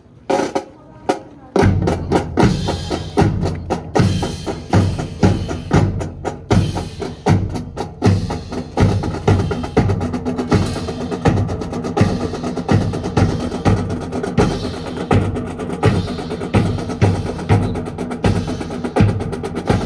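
Marching drum section playing: a few sharp stick clicks, then about a second and a half in, a steady drum cadence starts, with heavy low drum strokes under quicker, lighter beats.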